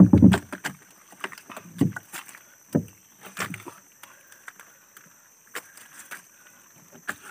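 A mesh prawn trap being handled against a boat's side: a series of dull knocks and thumps, the heaviest in the first three seconds, then lighter clicks and rattles of the trap's frame and netting.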